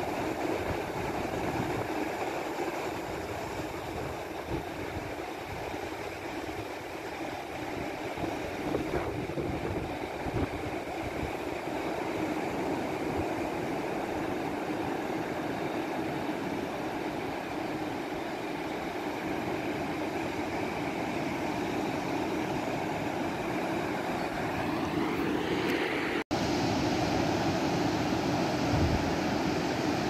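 Steady wash of distant ocean surf with wind gusting on the microphone. A brief rising tone comes in near the end, just before a momentary dropout, after which the surf sounds brighter.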